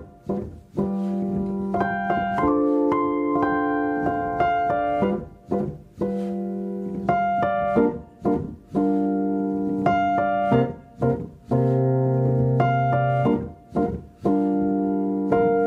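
Piano music: held chords that change every second or two, with brief pauses between phrases.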